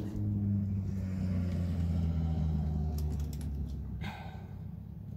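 Low, steady rumble of a motor vehicle that fades down about four seconds in. A few light clicks of small parts being handled come about three seconds in.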